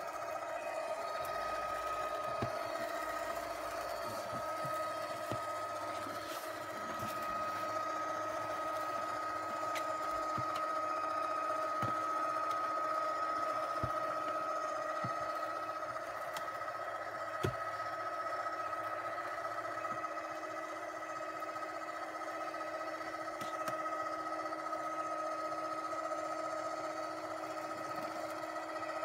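Litter-Robot Open Air self-cleaning litter box running its cleaning cycle: the drive motor hums steadily with a constant whine as the globe slowly rotates to sift the litter. A few light clicks sound now and then over the hum.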